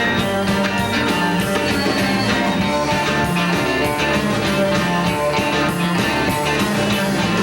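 Rock band playing: electric guitar over bass and drums with a steady beat.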